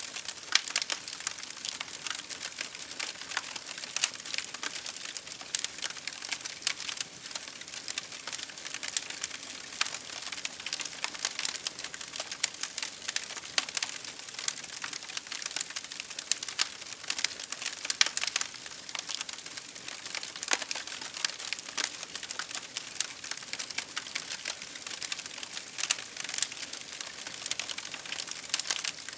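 A fire crackling: a dense, even stream of small, sharp pops and snaps, with a few louder snaps standing out.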